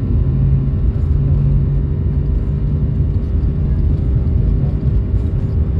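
Jet airliner cabin noise: a steady low engine rumble with a steady hum over it, loud and unbroken.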